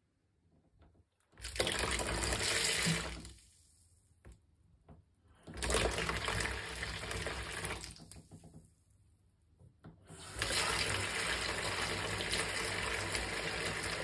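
Carron Phoenix Dante kitchen filter tap turned on and off three times, water running from the spout into a plastic bowl in the sink, with short pauses between. The tap is being tested after a valve replacement.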